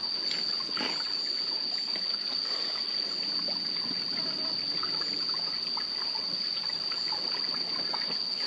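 Forest ambience: a steady high-pitched insect drone over a faint trickle of water.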